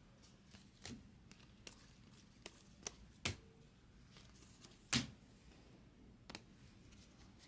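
Faint flicks and taps of a stack of 2020 Bowman baseball cards being leafed through by hand, card by card, with a sharper snap of card about five seconds in.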